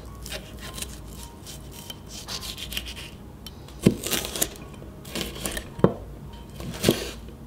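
A broad kitchen knife slicing a red chilli on a wooden chopping board: the blade scraping through the pod, with several sharp knocks of the blade on the board, mostly in the second half.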